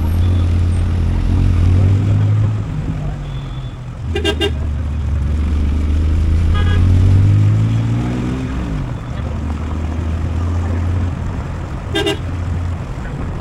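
Small car driving on a rural road, heard from a camera mounted low on its body: engine hum with tyre and wind noise, the engine note rising and falling. A horn gives two short toots, about four seconds in and near the end.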